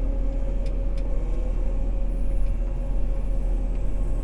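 Diesel engine of heavy farm machinery running steadily under load: a constant low rumble with a steady whine above it.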